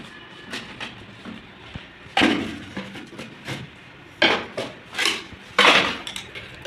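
Four sharp plastic knocks of PVC drain-pipe fittings being handled and pushed together, one about two seconds in and three more close together near the end.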